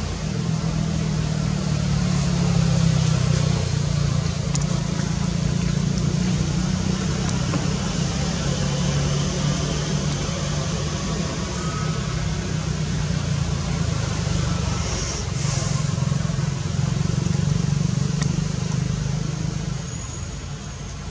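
A steady low rumble with an even hiss above it, easing slightly near the end.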